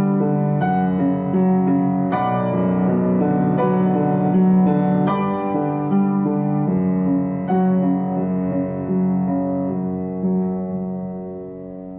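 Slow background piano music, notes struck every second or so and left to ring, growing quieter near the end.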